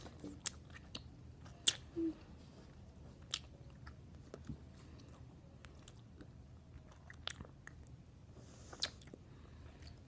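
A big wad of bubble gum, three pieces of Hubba Bubba, being chewed: irregular wet mouth clicks and smacks, a few of them sharper and louder, scattered throughout.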